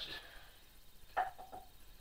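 Brief clatter of small metal tools being handled: one sharp knock about a second in, followed by a couple of lighter clinks.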